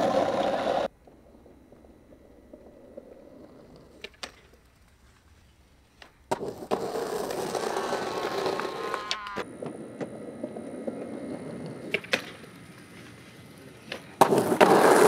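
Skateboard wheels rolling over rough asphalt in several stretches, with a few sharp clacks of the board between them. Near the end a loud, bright scrape as the board grinds a metal stair handrail.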